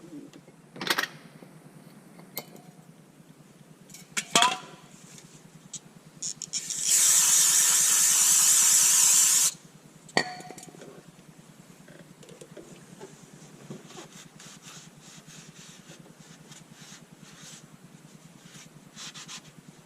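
Metal clinks and knocks of a flywheel and its bolts being handled at an engine's crankshaft, with a loud steady hiss lasting about three seconds in the middle, followed by another clink and faint ticking.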